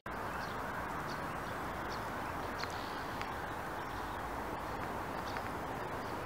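Steady outdoor ambience in a residential street: an even background rush, with faint short high chirps now and then.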